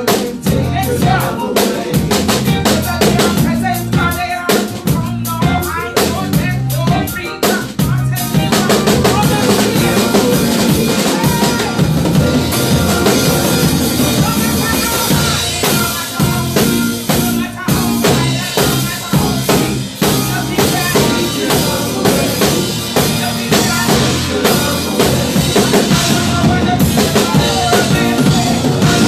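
Live band playing an instrumental passage of a gospel worship song: drum kit with snare, rimshots and bass drum over moving bass notes and other instruments.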